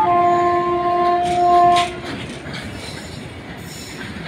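Horn of an approaching Indian Railways electric freight locomotive, one steady blast of about two seconds that then stops. Under it and after it runs the rumble of a passing goods train of tank wagons.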